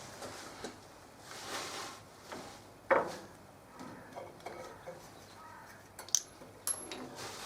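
Scattered knocks and clatter of parts being handled during shelf assembly, with one louder knock about three seconds in and two sharp metallic clinks near the end.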